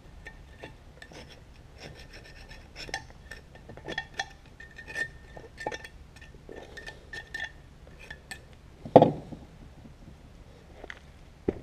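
A hand tool scraping and clicking against a metal tractor brake housing, working off dried grease, with a faint ringing note under the scrapes. About nine seconds in there is a single heavy thump as the part is handled.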